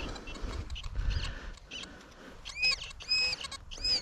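Metal detector signal tones: three short squeaky beeps about half a second apart in the second half, each rising, holding and falling in pitch, as the detector responds to a target. Faint handling noise comes before them.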